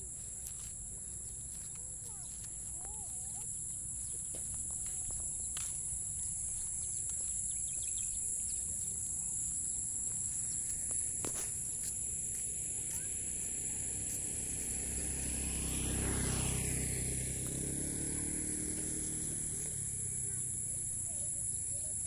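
Steady high-pitched insect drone with a few short bird chirps. About sixteen seconds in, a louder rushing sound swells and fades.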